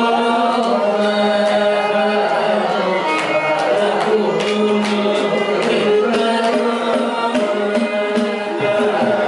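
A group of men and women singing a Carnatic-style devotional song together over microphones, over a steady drone, with hand-drum strokes keeping the beat.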